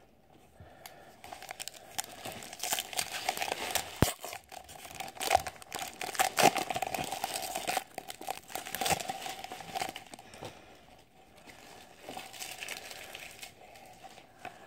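Shiny plastic wrapper of a hockey trading card pack being torn open and crumpled by hand, crackling for several seconds. Lighter crinkling near the end as the cards are handled.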